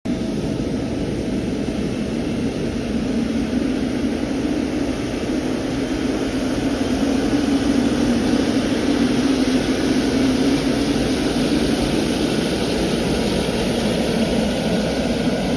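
Jet airliner engines running at high power, a steady rushing noise that grows a little louder about halfway through.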